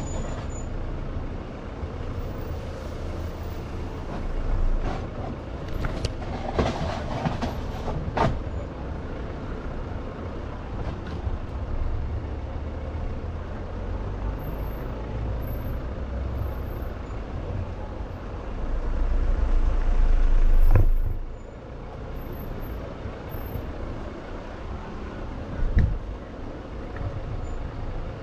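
Jeep SUV crawling down a rutted dirt trail: a steady low engine-and-tyre rumble with occasional knocks from the rough ground. About eighteen seconds in, a low rumble swells for a few seconds, then drops away suddenly.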